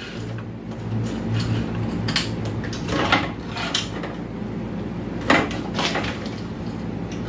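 Clicks and knocks of small parts and wires being handled and connected on a workbench, several separate taps with the sharpest about five seconds in, over a steady low hum.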